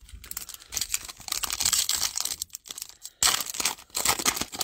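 A foil Panini Mosaic trading-card pack being torn open and its wrapper crinkled by hand: a run of irregular crackling and ripping, loudest over the last second and a half.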